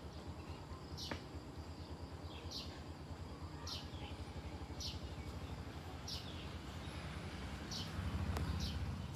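A bird repeating a short, high chirp about once a second, over a steady low rumble that grows louder near the end.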